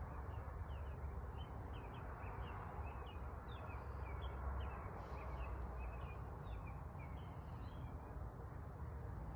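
Small birds chirping, short high notes repeated several times a second, over a steady low rumble.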